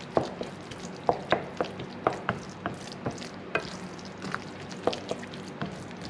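Wooden spoon stirring a thick rice mixture in a non-stick frying pan: irregular knocks and scrapes of the spoon against the pan, two or three a second, over a faint steady sizzle.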